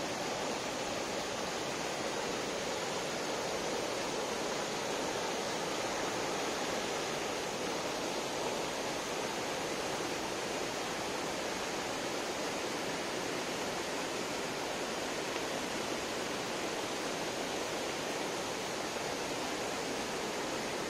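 Mountain river rushing over boulders in white-water rapids: a steady, even rush of water.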